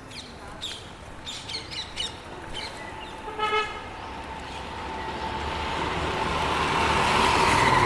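A vehicle horn toots briefly about three and a half seconds in. A road vehicle then approaches, its noise growing steadily louder to the end. Short bird chirps come in the first few seconds.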